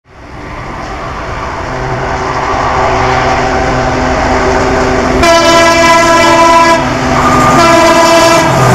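WDP 4 (EMD GT46PAC) diesel locomotive approaching, its engine drone growing louder, then sounding its air horn in two long blasts, the second starting about a second after the first ends and still going at the end.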